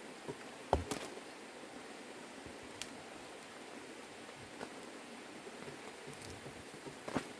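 Light handling noise: a few scattered clicks and knocks, the loudest just under a second in, with some rustling over a steady background hiss.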